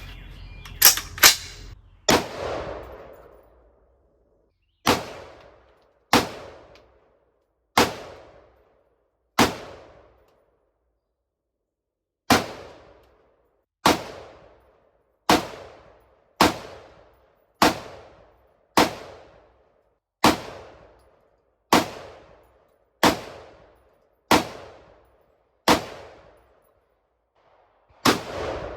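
Gunshots fired one at a time: about eighteen sharp cracks, each with a brief echo trailing off, at a slow, fairly even pace of roughly one shot a second or so, with a couple of longer pauses.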